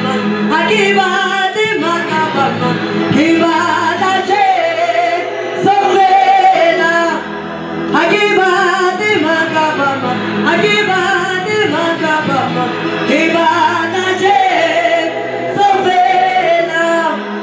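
Gospel choir singing a worship song in several-part harmony, in phrases of about two seconds over a steady low note.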